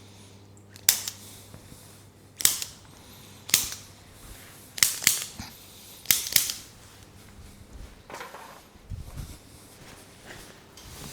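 A run of about seven sharp, loud cracks over some six seconds, two of them in quick pairs, made during chiropractic treatment of the lower back and sacrum. A softer rustling follows about eight seconds in.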